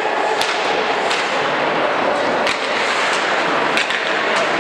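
Live ice hockey play: a steady hiss of skates on the ice, broken by several sharp clacks of sticks on the puck and ice.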